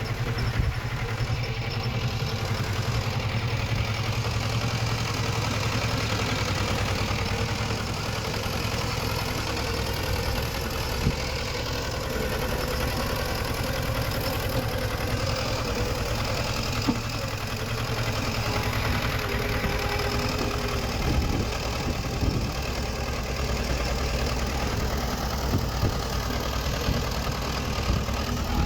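Heavy-equipment diesel engine running steadily at a constant speed. A few sharp knocks come in the second half.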